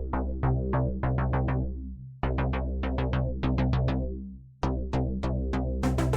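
Background electronic music: quick repeated synth notes over a steady bass, in short phrases, with a drum machine.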